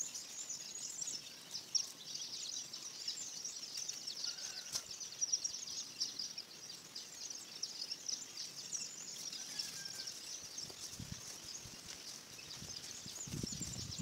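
Rural field ambience: a steady high-pitched chorus of rapid chirping from wild creatures, with a few faint short calls and an occasional light click.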